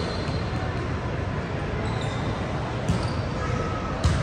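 Volleyball being struck during a rally in a large gym: a couple of sharp smacks over a steady hall din, the loudest near the end, with short high squeaks such as sneakers make on the hardwood floor.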